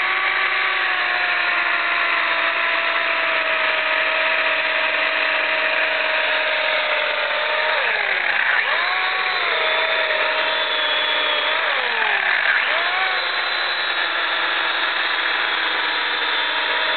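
Chainsaw running steadily at high speed while its chain cuts a trench through soil. The pitch drops and recovers twice, about eight and twelve seconds in, as the chain bogs under load in the dirt.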